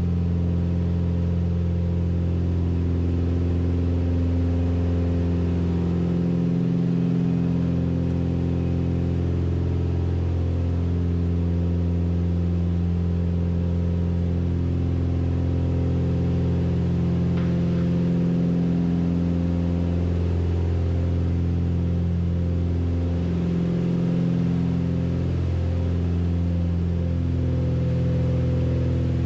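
Beechcraft Baron B55's twin six-cylinder piston engines and propellers running at climb power after takeoff, heard from inside the cockpit. The steady drone swells and fades slowly every few seconds.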